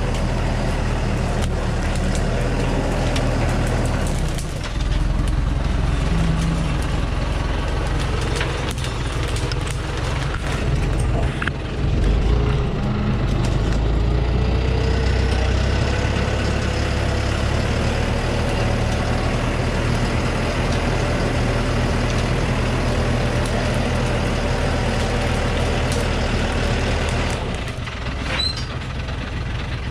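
Thaco Forland FC950 4WD truck's diesel engine running, its note rising about 5 seconds in, peaking around 12 seconds, and easing off near the end.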